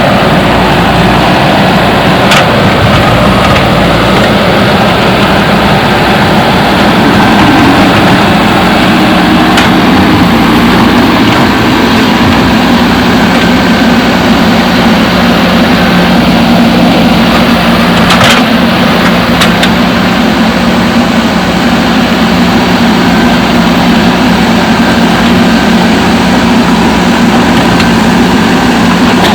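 JCB backhoe loader's diesel engine running steadily, with a few sharp knocks.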